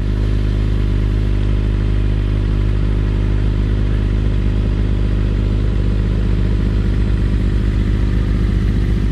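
Sports motorcycle engine running loud and steady at an even speed, starting up just before and cutting off right after.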